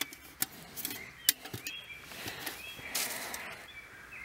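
Light handling sounds at a small metal camp wood stove: a few sharp clicks and knocks, the first three within the first second and a half, over soft rustling of dry leaves.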